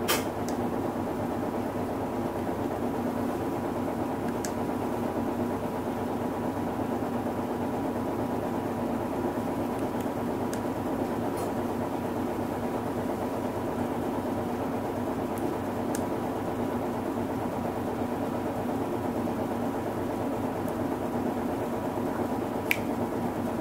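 Hino Rainbow II medium-size non-step bus engine running at a steady, unchanging pitch, heard from inside the cabin, with a few faint clicks.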